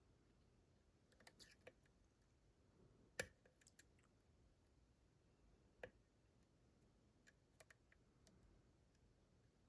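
Faint, scattered light clicks of lock picking tools working inside a Dorma DC500 lock cylinder, with two sharper clicks about three and six seconds in.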